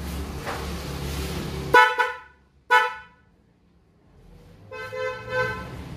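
A Toyota Corolla DX's car horn sounding: two short honks close together about two seconds in, then a longer honk near the end. The honks show the horn working through the newly fitted horn relay.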